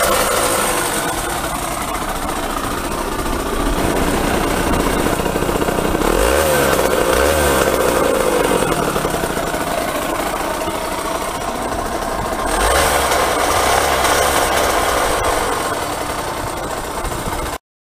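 Yamaha TZR50R's 50 cc two-stroke single-cylinder engine running, the revs rising and falling a few times. The sound cuts off suddenly near the end.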